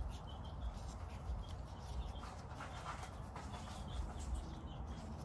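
Quiet rustling and small handling sounds of gloved hands wrapping medical tape around a chicken's bandaged foot, over a low steady background rumble, with a few faint chirps.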